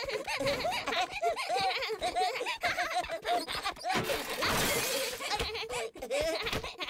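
Cartoon children giggling and laughing in a steady run of short, high bursts, with a brief crash about four and a half seconds in.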